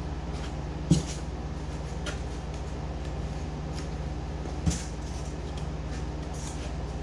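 Air conditioner running with a steady hum, with two dull knocks, one about a second in and one near five seconds, and faint scratchy handling noises.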